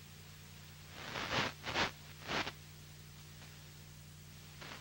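Steady low electrical hum on the audio feed, with three short noisy sounds in quick succession about a second in.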